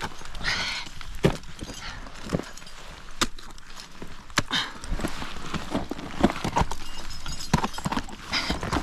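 A climber's crampons and ice tools knocking and scraping on snowy rock during winter mixed climbing: irregular sharp knocks and clicks, with short scraping rushes about half a second in, about halfway and near the end.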